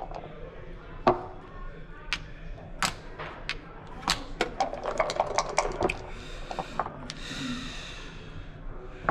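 Backgammon checkers and dice clacking on the board as moves are played: scattered sharp clicks, with a quick run of rattling clacks in the middle.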